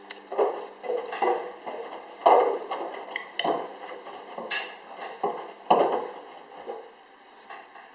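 Irregular knocks and taps as a cat plays against a washing machine, about a dozen uneven strikes with two heavier thumps, a little after two seconds in and again near six seconds.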